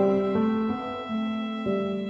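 Background piano music: slow sustained chords changing every half second or so.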